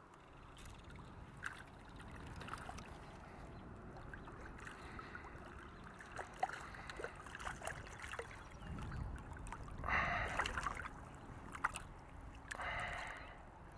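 River water splashing and trickling as a small bass is played in on a fly line, with two louder splashes near the end.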